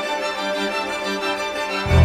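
Music with held, organ-like keyboard chords and no singing; a deep bass comes in just before the end.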